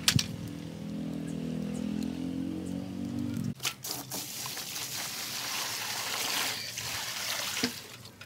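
A tractor engine hums steadily for the first three and a half seconds, with a sharp knock at the very start. Then water is poured from a bucket into a plastic wheelbarrow, a steady splashing rush for about four seconds.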